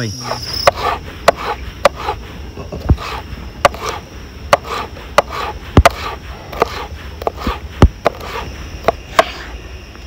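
A kitchen knife chopping vegetables (capsicum and onion) makes irregular sharp knocks, a few of them heavier, over steady cricket chirring.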